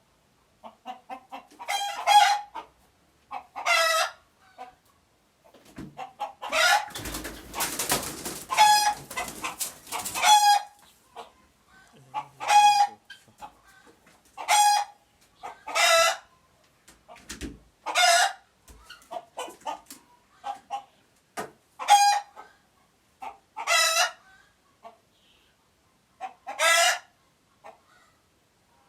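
Chickens giving alert calls: a loud squawk about every two seconds, with soft clucking in between. About seven to ten seconds in, a burst of rustling noise runs under the calls.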